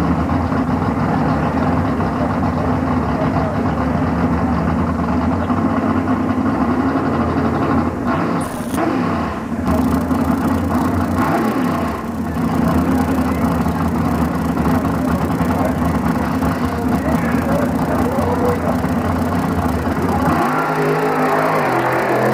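Mud racing truck's engine running loudly at a steady pitch. About 20 seconds in the note changes and starts to climb.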